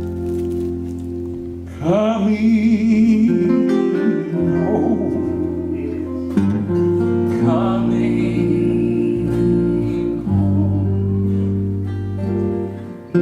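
Southern gospel song: a singer with vibrato over sustained instrumental accompaniment. Sung phrases come in about two seconds in and again around six and a half seconds in.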